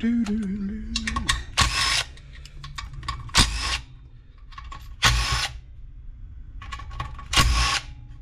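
Cordless impact driver hammering in four short bursts about two seconds apart as it backs out the crankcase cover bolts on a Briggs & Stratton 550EX push-mower engine.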